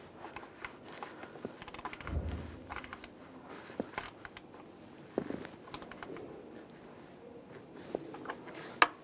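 Scattered light clicks, taps and rattles of hand tools and parts being handled in a pickup truck's engine bay, with a short run of quick clicks and a dull thump about two seconds in.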